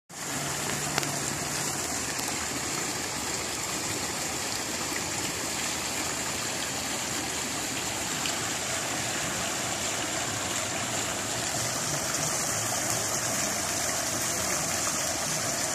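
Water spilling along a stone wall into a koi pond, a steady rush of running, splashing water.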